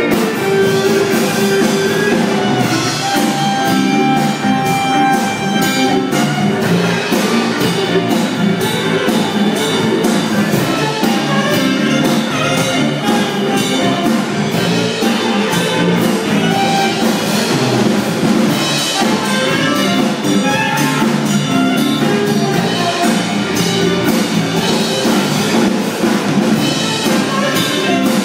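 Saxophone playing the lead melody over a live rock band of electric guitars, bass guitar, keyboard and drum kit, with one long held note about four seconds in.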